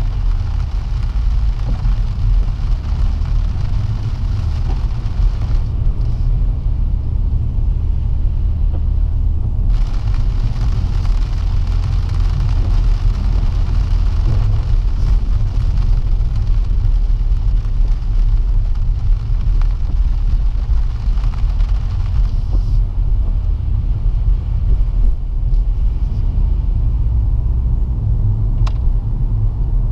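Steady low rumble of a BMW M140i xDrive's engine and road noise, heard from inside the cabin while it is driven slowly.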